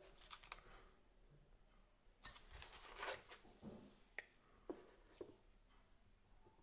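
Faint handling noises: a brief soft rustle and a few light clicks and taps as small tools and the atomizer deck are handled on a desk.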